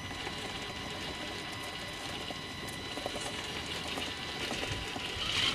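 Small electric drive motor and gearbox of an HB Toys R1013 RC rock crawler whining steadily as it crawls up over a concrete block ledge, growing louder near the end.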